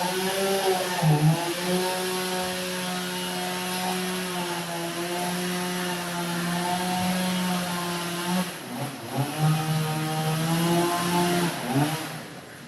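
Two-stroke chainsaw running at high revs with a steady whine, briefly dropping in pitch about a second in and again around nine seconds before revving back up, and cutting off near the end.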